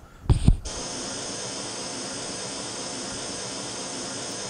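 Pink noise test signal from a source loudspeaker: a steady, even hiss that starts under a second in, just after a short low thump. It is the stimulus for measuring the passive attenuation of noise-cancelling headphones on an ear simulator with a 1/3-octave real-time analyser.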